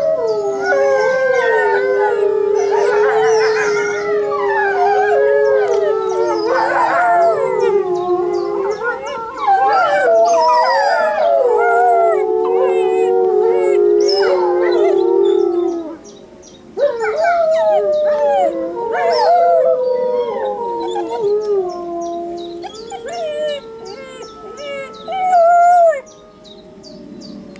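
Wolves howling in chorus, many long gliding howls overlapping one another, with a Saarloos wolfdog puppy joining in. The chorus breaks off briefly about sixteen seconds in, then starts again.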